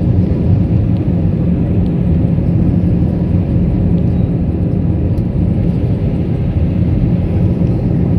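Aircraft cabin noise in flight: the steady low rumble of the engines and airflow, with a faint steady hum.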